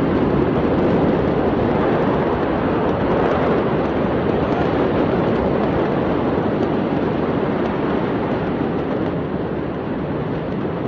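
Loud, steady rushing noise with no distinct bangs or voices.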